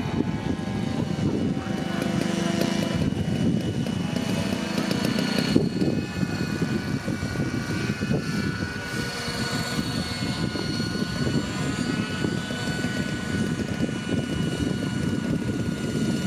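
Radio-controlled model helicopter on floats hovering low over water: its rotor blades chop rapidly and steadily under a steady high whine from its drive.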